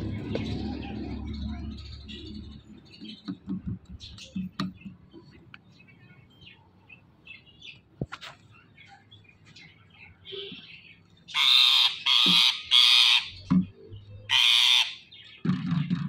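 Rose-ringed (Indian ringneck) parakeet giving loud, harsh squawks: three in quick succession and one more a moment later, in the second half. Before them, only faint scattered taps and rustles.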